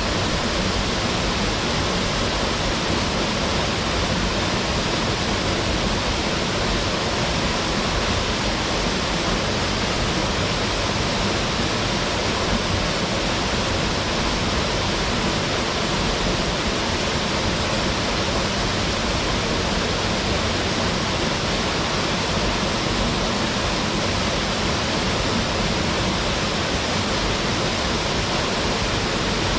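Waterfall plunging into its pool: a steady, even rush of falling water with no breaks or changes.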